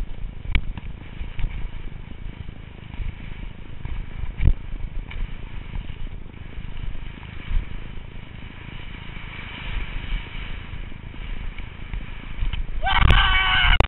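Wind buffeting a helmet-mounted GoPro Hero and skis sliding over snow: a steady low rumble with scattered knocks. Near the end a loud, pitched sound rises in and holds.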